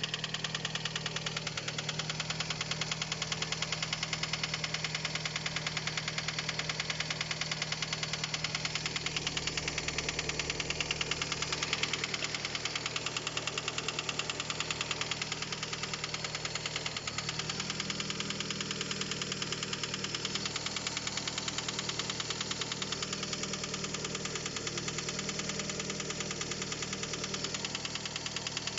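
Fiat Albea engine idling with a rapid, steady knock. The cause was a stuck variable valve timing (VVT) phaser valve. The idle note shifts slightly about two-thirds of the way through.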